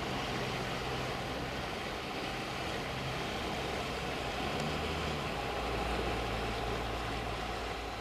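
A motor engine running steadily under a constant wash of sea and wind noise, its hum dropping lower about five seconds in.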